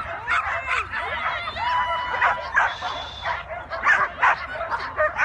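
Several flyball dogs barking in quick succession, with high whining yelps between the barks. The barks come thicker in the second half.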